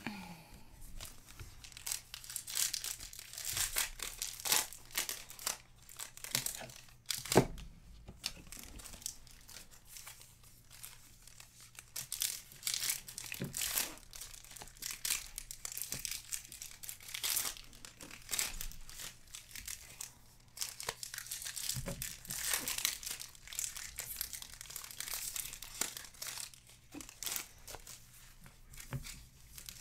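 2020 Topps Big League Baseball card packs being torn open, their wrappers crinkling and crackling steadily, with one louder knock about seven seconds in.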